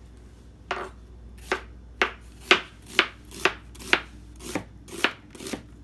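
A knife chopping onions: about ten sharp, evenly paced strokes, roughly two a second.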